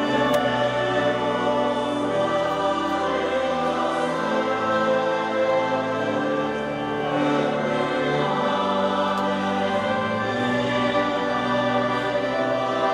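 A choir of mostly women's voices singing, holding sustained notes in several parts.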